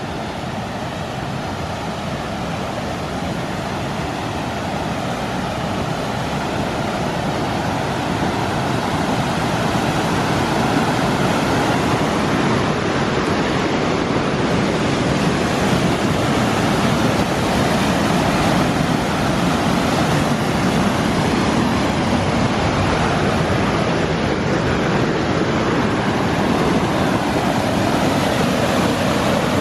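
Waterfall swollen with spring snowmelt runoff: a steady rush of falling water that grows gradually louder over the first several seconds.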